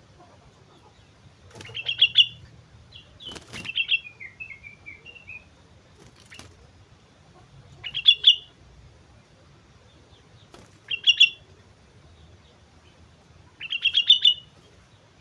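Sooty-headed bulbul (kutilang) singing in short, bubbly chirping phrases, five of them spaced a few seconds apart, one trailing off in a quick falling run of notes. A couple of sharp clicks fall between the phrases.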